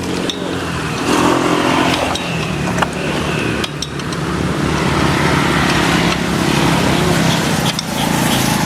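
An engine running, its note shifting as the speed changes, with a few sharp clicks or knocks.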